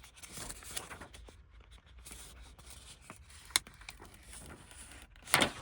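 Faint handling sounds as a plastic screen protector film is peeled from its backing: light rustling and small clicks, with a sharp tick about three and a half seconds in and a short, louder rustle near the end.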